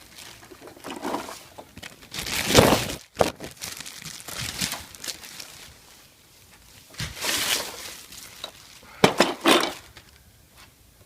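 Packaging being handled during unpacking: plastic wrap and packing material crinkling and rustling in several separate bursts, loudest about two and a half seconds in.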